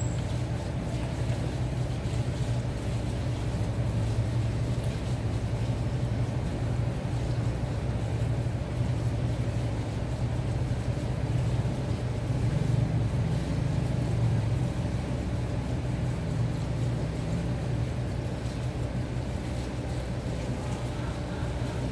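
Steady low electric hum from small motor-driven equipment, even throughout with a slight swell in the middle, over a light hiss.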